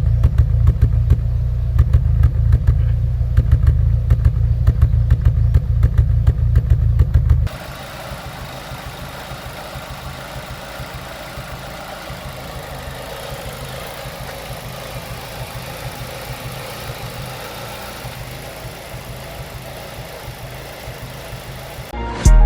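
Ford Fiesta ST150's 2.0-litre four-cylinder engine idling rough with a misfire, probably running on three cylinders, its beat uneven and stumbling. About a third of the way in the sound cuts abruptly to a quieter, thinner running sound.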